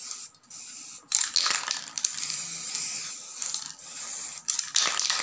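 Aerosol spray-paint can hissing as it sprays a wicker basket, in a run of bursts starting about a second in, with a few short breaks between them.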